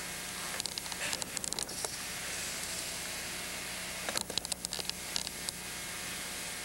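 Rustling of cotton martial-arts uniforms and hakama with light taps as kneeling people bow down and straighten up, in two short clusters, about a second in and again about four seconds in. Underneath is a steady hiss and a low hum.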